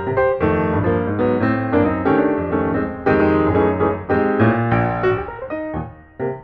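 Background piano music: a steady run of struck notes and chords, dipping briefly near the end.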